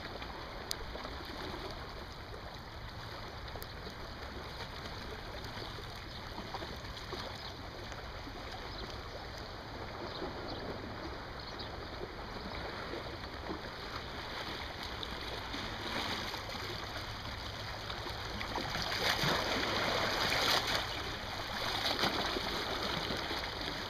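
Steady rushing noise of wind and choppy lake water, swelling louder near the end.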